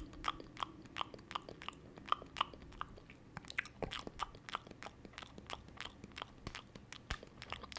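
Quiet crunching and chewing as people eat crisp food with their hands: short, irregular crunches, a few a second.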